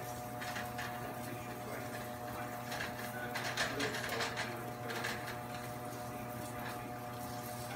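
A wooden spatula scraping and tapping in a frying pan, busiest from about three to five seconds in, over a steady low hum.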